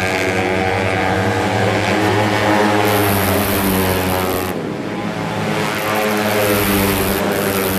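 Several racing 115cc automatic scooter engines running at high revs as the bikes pass, their pitch wavering up and down. The sound changes abruptly about halfway through.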